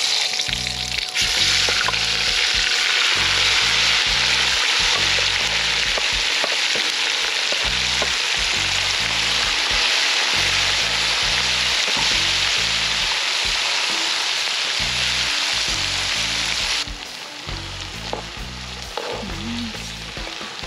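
Sliced onions, sweet peppers and Scotch bonnet peppers hitting hot coconut oil in a wok and sizzling loudly as they are stirred. After about seventeen seconds the sizzle drops to a quieter frying.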